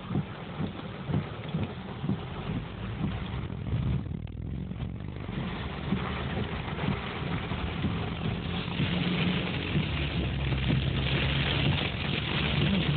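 Hail and heavy rain pelting a car's roof and windshield, heard from inside the cabin over the steady hum of the moving car. Scattered knocks of hailstones come through the first half, and the downpour grows louder and hissier in the second half.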